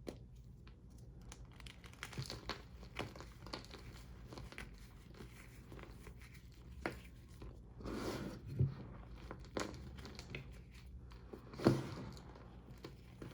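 Reformed gym chalk being crushed, a run of small crackles and crunches, with louder crunches about eight seconds in and near the end. The reform is not fully dried, which makes it crunchy.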